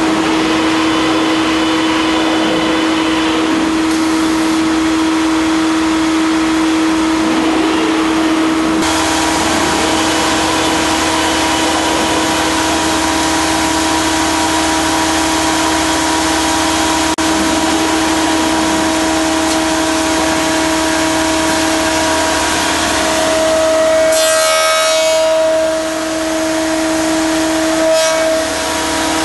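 Stromab Matrix F upstroke crosscut saw running, a steady hum over an even rush of noise. A louder stretch about three-quarters of the way through, with a brief one near the end, is the blade rising through the timber.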